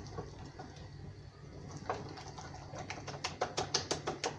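Red silicone-coated wire whisk beating egg-and-flour batter in a glass bowl: a few soft taps at first, then from about halfway a quick run of light clicks against the bowl, several a second.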